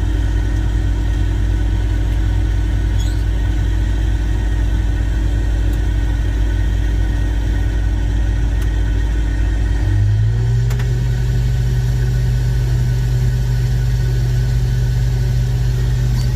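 Combine harvester engine and machinery running with a steady low hum that steps up in pitch about ten seconds in.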